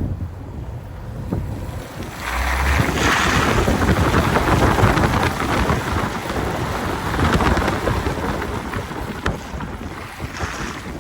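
Snowstorm wind gusting hard and buffeting the microphone, a loud rushing that swells about two seconds in and eases toward the end.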